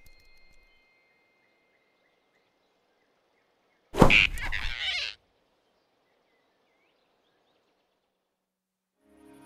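Cartoon sound effect of a big rabbit's hand snatching a flying squirrel off a branch: one sudden swipe-and-grab sound about four seconds in, lasting about a second, with near silence before and after it.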